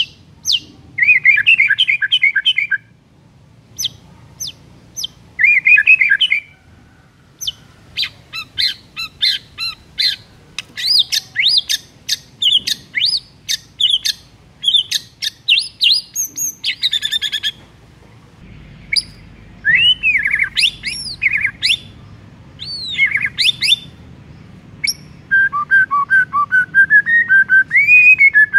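White-rumped shama singing a loud, varied song: fast trilled phrases, quick runs of sharp chipping notes, and arching whistles that rise and fall.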